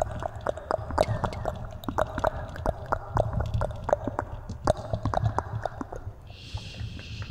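Close-up wet mouth sounds: irregular clicks and smacks, several a second, over a steady hum. About six seconds in, a breathy hiss joins them.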